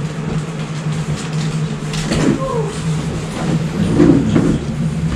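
Steady low hum under the movement of several people getting up from their seats, with a few short murmured words about two and four seconds in.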